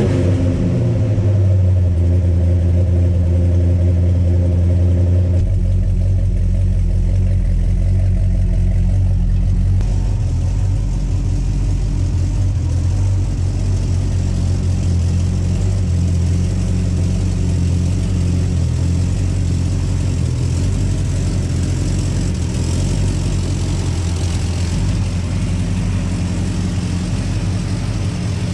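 1972 Buick GS's 455 big-block V8 running through Walker Dynomax exhaust, dropping back from a rev about the first second in and then idling steadily.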